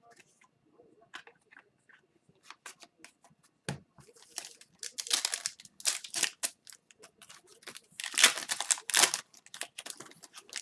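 Hockey card pack wrapper crinkling and tearing, with trading cards being shuffled and slid against each other: a run of short rustles and clicks, busiest about halfway through and again near the end.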